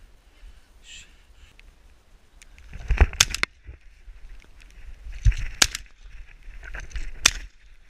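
Rustling and sharp clicks of movement close to the body-worn camera, in three short bursts about three, five and a half and seven seconds in.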